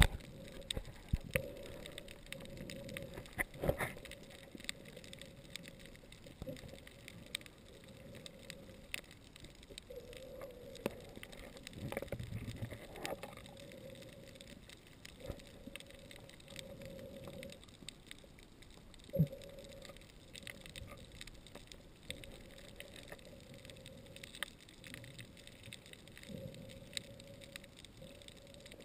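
Muffled underwater sound on a coral reef, picked up through a camera's waterproof housing: scattered clicks and knocks, two louder ones about four seconds in and about two-thirds of the way through, over a low hum that comes and goes.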